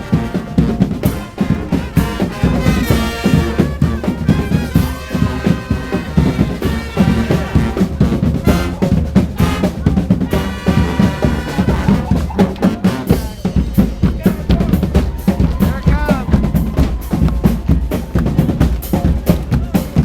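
Street brass band playing, with snare and bass drums keeping a steady, busy beat. Brass horns come in over the drums at times.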